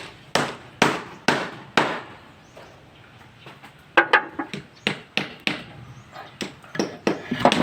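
Hammer blows at a steady pace of about two a second, a pause of about two seconds, then quicker, uneven strikes.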